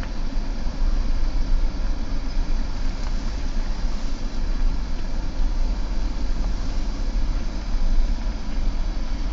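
Car running, heard as a steady low rumble with an even hiss of road noise and no sharp events.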